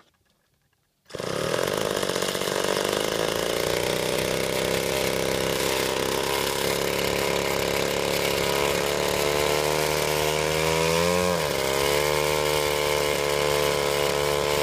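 Ohlsson & Rice Compact III 21cc two-stroke chainsaw engine, turning a 16x8 wooden propeller, starting suddenly about a second in and running loud and steady. Its pitch creeps up over the next several seconds, dips briefly near the end, then holds.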